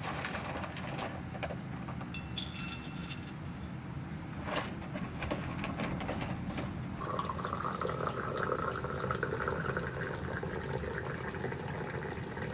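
Tea poured in a stream from a metal teapot into a glass, a steady filling sound starting about seven seconds in. A few light knocks come before it.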